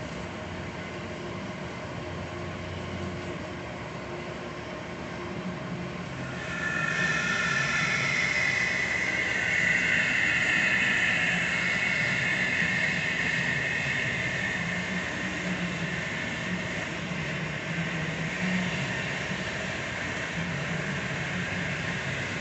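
Hyd-Mech S-20 horizontal mitre bandsaw running with a steady machine hum. About six and a half seconds in, a louder high-pitched whine joins it, strongest over the next several seconds and then easing off.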